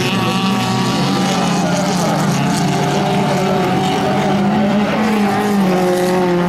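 Several race cars' engines running hard at the same time, a steady, dense mix of high-revving engine notes, with one note dropping in pitch about five seconds in.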